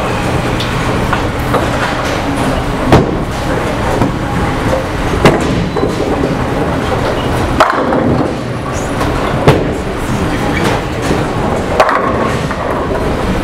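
Bowling alley din: bowling balls rolling down the lanes in a steady rumble, with sharp crashes of balls striking pins every couple of seconds, five in all.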